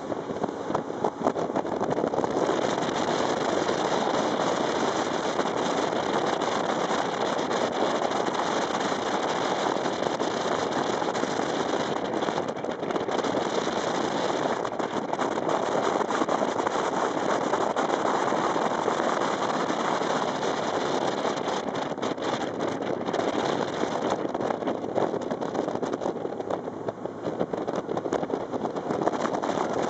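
Rigid inflatable speedboat running fast across open water: a steady rush of engine noise, water against the hull and wind over the microphone.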